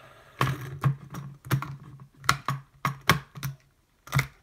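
Silicone bubbles of a pop-it fidget spinner being pressed one after another: about ten sharp, hollow pops at an irregular pace.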